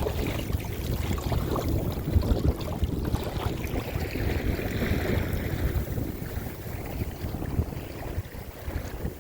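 Wind buffeting the microphone, a gusty low rumble, over water sounds from a kayak moving through choppy tidal current. It eases slightly near the end.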